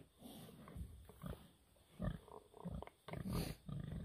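Large pig grunting: a series of short, low grunts at irregular intervals, with a brief louder noisy burst about three seconds in.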